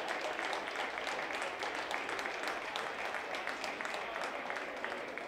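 Crowd applauding: many scattered hand claps blending into a steady patter that eases slightly toward the end.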